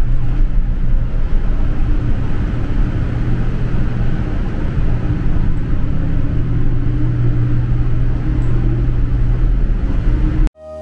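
Car ferry's engines and machinery giving a steady low rumble and hum below decks. It cuts off suddenly near the end.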